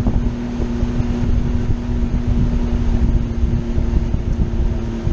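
Mercury two-stroke outboard motor running steadily with the boat underway, a constant drone over the rush of wind and water.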